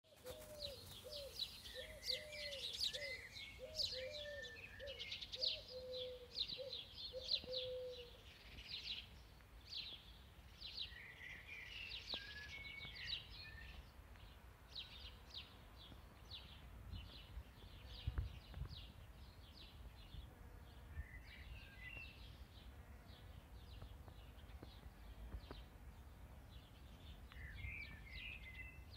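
Wild birds singing and chirping in quick high phrases, with a run of low, short, repeated notes from another bird in the first eight seconds, over a faint low outdoor rumble.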